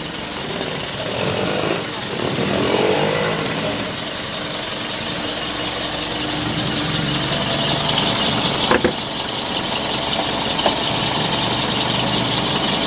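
Mazda BT-50's 2.5-litre four-cylinder diesel engine idling steadily. Two sharp clicks come in the second half.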